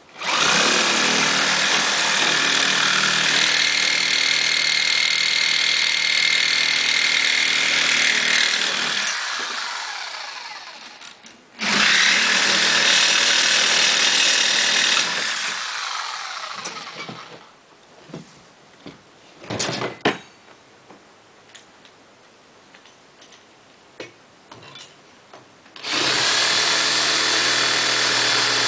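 Corded reciprocating saw running and cutting in three bursts, with a steady motor whine. The first burst lasts about nine seconds and winds down. A second runs from about twelve to seventeen seconds. After a stretch of quiet clicks and knocks, a third starts near the end.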